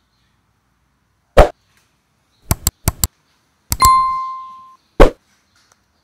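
A sharp knock, then four quick clicks, then two more clicks followed by a bright bell-like ding that rings and fades over about a second, then another sharp knock, with dead silence between them.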